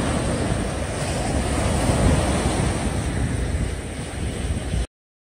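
Small waves breaking and washing up a sandy beach, with wind buffeting the microphone. The sound swells slightly about two seconds in and cuts off suddenly near the end.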